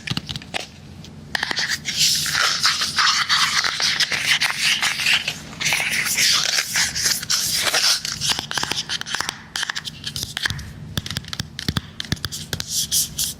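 Close-miked tapping and scratching on a hard device: fast irregular taps, with long stretches of scraping from about two to ten seconds in.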